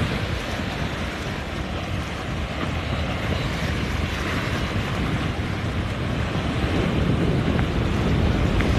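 Wind buffeting the microphone over the rush of waves and surf, a steady heavy noise that swells a little near the end.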